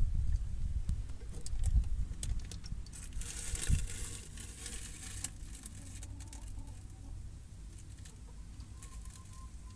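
Rustling and scattered small clicks with a few dull low thumps in the first four seconds, then a quieter background: handling noise from a hand-held phone.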